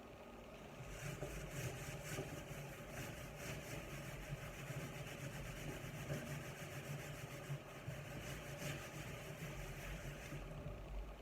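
A motor running steadily with a low hum, and a fast, even ticking over it from about a second in until just before the end.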